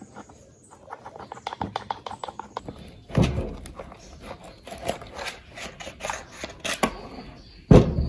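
Screwdriver turning a rusty screw in an old table fan's stand arm, a quick run of small scraping clicks, then knocks and clunks as the arm is worked off the metal motor housing and the motor is set down on a wooden table. The hardest knocks come about three seconds in and just before the end.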